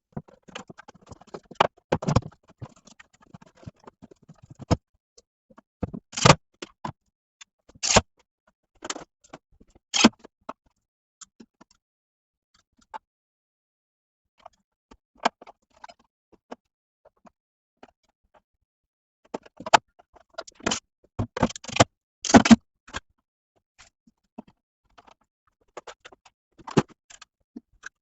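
Hand tools and panel parts being handled: irregular clicks, knocks and short scrapes, with a quiet stretch in the middle and a busy run of knocks about twenty seconds in.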